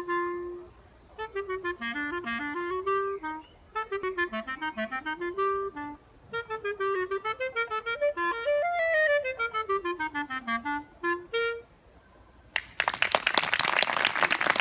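Solo clarinet playing fast runs of notes that climb and fall in several phrases, ending on a short note. After a brief pause, applause breaks out near the end.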